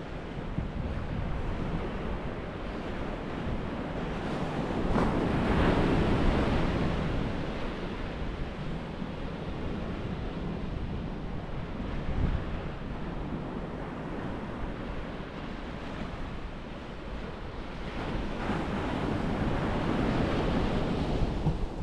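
Surf washing onto a beach, swelling twice as waves break, over a low rumble of wind on the microphone.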